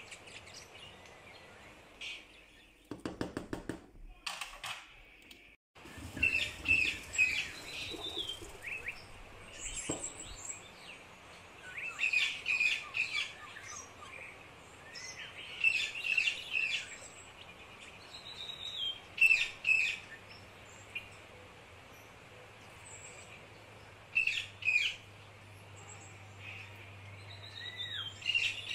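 A small bird chirping and twittering in short phrases, one every few seconds, with a brief run of fast, evenly spaced clicks about three seconds in.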